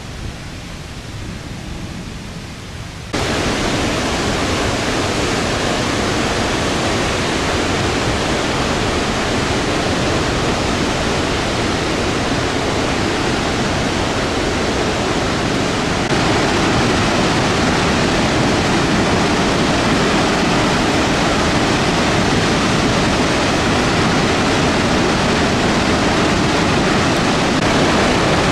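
Roar of Victoria Falls: a loud, steady rush of falling water that jumps suddenly louder about three seconds in and steps up a little again about halfway through.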